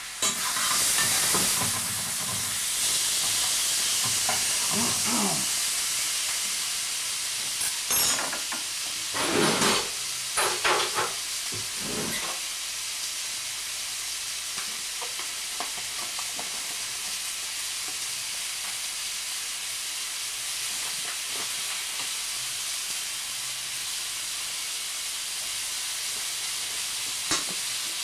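Pineapple frying in butter in a pan gives a steady sizzle throughout. Over it come a few knocks and clatters from the metal mixing bowl being handled on the kitchen scale, clustered about eight to twelve seconds in.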